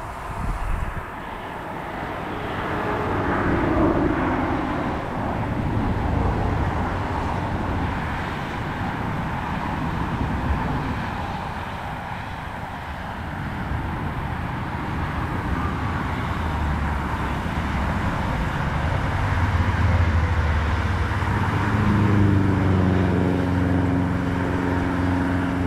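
Steady engine noise with a low droning hum that gets stronger over the last few seconds, its pitched tone holding steady.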